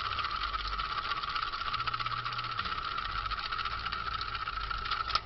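3D-printed fidget spinner whirring on its bearing while held on a fingertip: a steady humming whir with a very fast, fine rattle.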